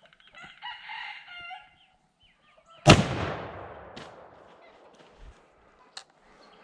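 A single rifle shot from an 1886 Winchester lever-action chambered in .50-110, firing a 300-grain bullet. It comes about three seconds in and is the loudest sound, with an echoing tail that fades over about a second. A rooster crows just before it, and two faint clicks follow.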